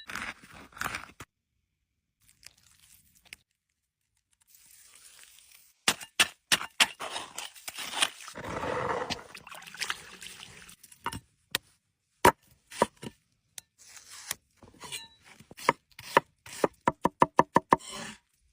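Food-preparation handling sounds: scattered sharp knocks and clicks with a brief rustle, then a quick even run of about a dozen knocks near the end.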